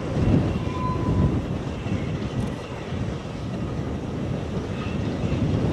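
Distant narrow-gauge steam train running through a curve, a low rumble mixed with gusty wind buffeting the microphone.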